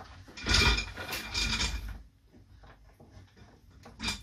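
A laptop charger's cable and plug are handled and rubbed against a wooden desk, with rustling and scraping for about two seconds. After a quiet stretch, a sharp click comes near the end as the plug is pushed into the laptop's charging port.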